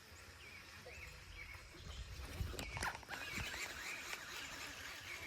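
Faint outdoor ambience: small birds chirping off and on over a low wind rumble, with a brief knock or rattle about two and a half seconds in.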